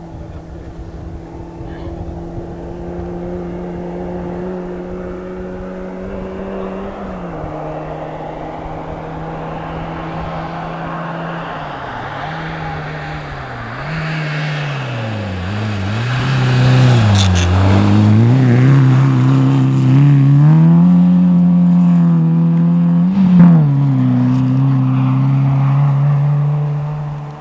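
Small hatchback rally car's engine on a snow stage, first steady and more distant, then growing louder as it approaches, the revs dropping and rising several times. It is loudest as it passes, with a sharp crack near the peak, then falls away near the end.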